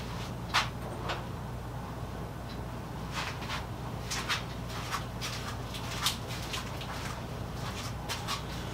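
Drill running steadily at low speed, opening a pilot hole in the chainsaw's magnesium housing out to a number 21 bit, with scattered clicks and scrapes as the bit cuts.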